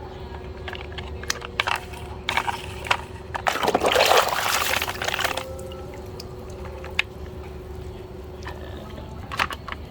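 Water splashing for about two seconds, with scattered light clicks and knocks before and after, over a steady hum.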